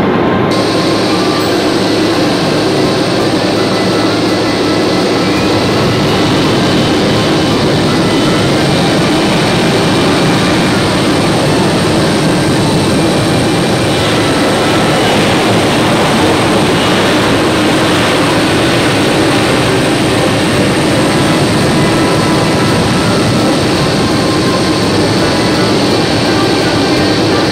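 Embraer E-Jet regional airliner's twin turbofan engines running as it rolls along the runway: a loud, steady rush with a thin high whine on top.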